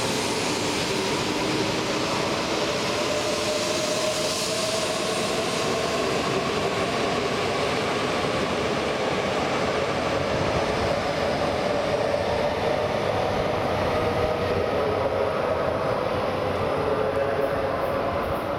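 E4 series Max double-decker Shinkansen pulling out of the station and gathering speed past the platform. Its traction motors give a whine that climbs slowly and steadily in pitch over the rolling and running noise of the cars.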